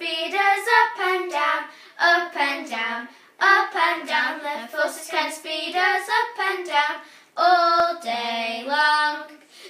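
Three young girls singing together without accompaniment, in short phrases with brief pauses between them.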